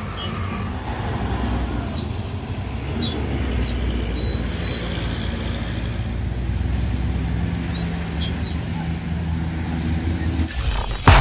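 Isuzu Giga 285 truck's diesel engine running steadily, labouring on a rain-wet steep climb where its rear wheels slip, with a few brief high squeaks over it. Loud electronic music cuts in near the end.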